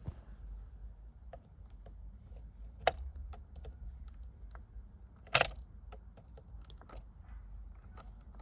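Scattered small clicks and knocks of a screwdriver and hard plastic parts being handled, with two louder sharp clacks about three seconds and five and a half seconds in.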